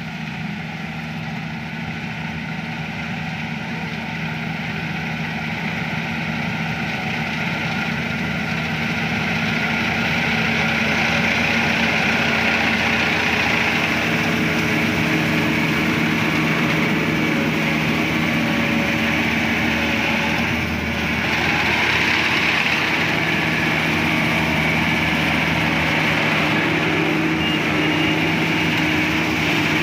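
Combine harvester's engine and machinery running steadily, growing louder over the first ten seconds or so and then holding level.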